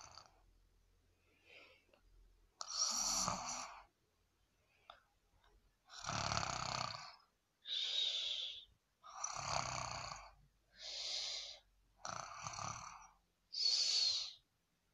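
Snoring: one snore about three seconds in, then after a lull a run of six breathy snores about every second and a half.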